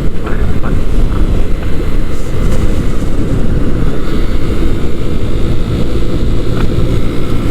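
Steady wind rush and rumble on the rider's microphone from a 125cc motorcycle on the move, its engine running steadily underneath.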